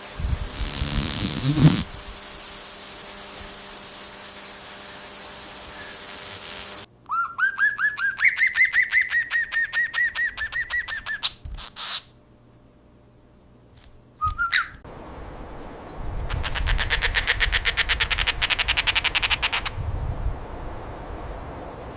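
A string of short animal-sound clips joined with abrupt cuts, mostly bird calls. The first is a fast trill of rapid chirps, followed by a short quiet gap. Later comes a longer, higher, buzzy trill of very fast pulses.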